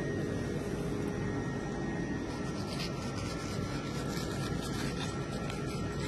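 A steady low rumble of background noise, with the faint rubbing and scraping of a long knife slicing through a block of raw tuna belly (otoro) on a cutting board.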